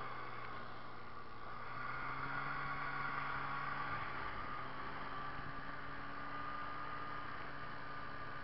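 Snowmobile engine running steadily as the sled travels along a snow trail.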